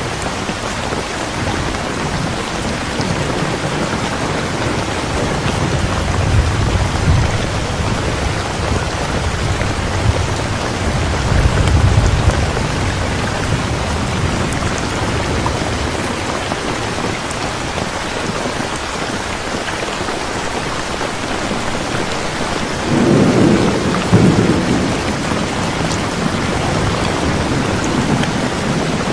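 Heavy rain falling steadily, with rolls of thunder rumbling low three times: a few seconds in, near the middle, and again most strongly about three-quarters of the way through.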